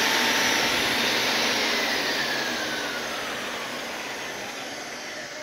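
Electric drill driving an open Eaton Fuller 18-speed Road Ranger gearbox in low crawler gear, its gears churning through oil. The drill's whine slowly drops in pitch and the sound grows quieter as it slows.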